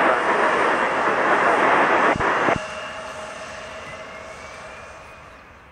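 A loud burst of air-band radio static for about two and a half seconds, cut off abruptly with clicks, over the Dassault Falcon 900EX's three turbofan engines running as it lines up on the runway; after the static stops the engine sound fades steadily away.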